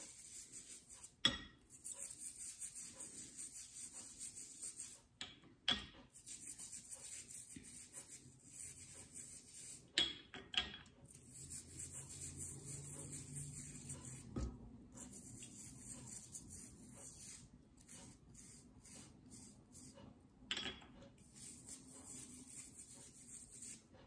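Toothbrush bristles scrubbing a small wet rock: a faint, high scratchy hiss that comes in runs of a few seconds with short breaks, with a few light knocks along the way.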